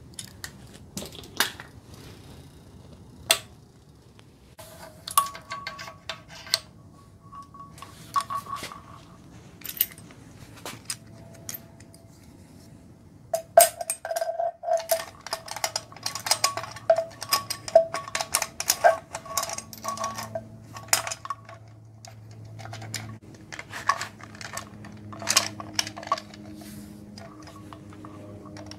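Steel timing chain and hand tools clinking and rattling against the metal of an Ecotec engine's front as the chain is worked over the cam and crank sprockets. Irregular runs of sharp clinks with a ringing metallic tone, sparse at first and busiest from about halfway through.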